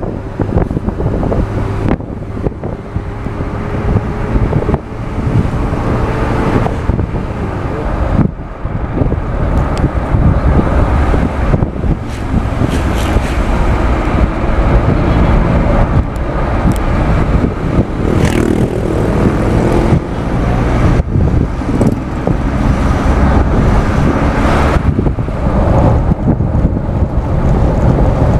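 Wind buffeting the microphone over the running engine and road noise of a moving vehicle, loud and continuous, with gusty rises and dips.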